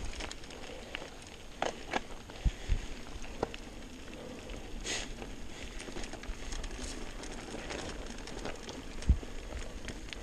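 Mountain bike rolling downhill over a stony dirt singletrack: tyres crunching and pattering over loose gravel with the bike rattling, and a few sharp knocks as it hits rocks, the loudest about nine seconds in.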